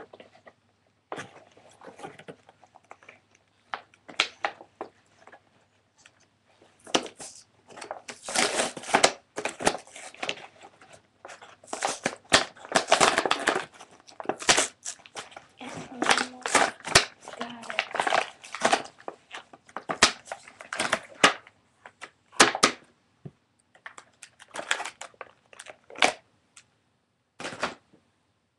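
Plastic toy packaging being handled and pulled apart: crinkling and crackling with tearing and sharp snaps in irregular bursts, busiest through the middle.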